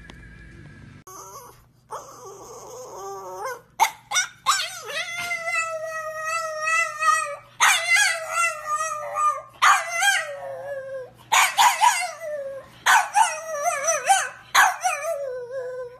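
French bulldog howling and whining with its head raised toward the pizza on the table, as if begging for it. The howls come as a run of about six long, wavering calls, each a second or two long and dropping in pitch at the end, from about four seconds in. A faint steady low hum lies underneath.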